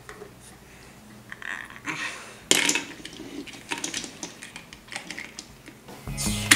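Plastic toy pieces clicking and clattering as they are handled, with a sharp knock about two and a half seconds in. Music starts near the end.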